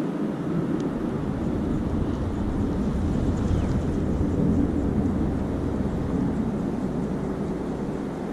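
Gusty wind buffeting the microphone: a steady low rumble that thickens about a second in.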